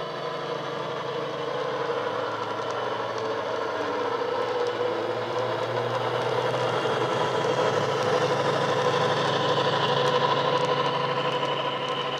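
Diesel engine sound from a Legomanbiffo Class 70 sound file, played by the DCC sound decoder through an EM1 speaker in a Bachmann Class 70 model locomotive. It runs steadily with a strong bass and grows louder as the model approaches and passes with its wagons, then eases slightly near the end.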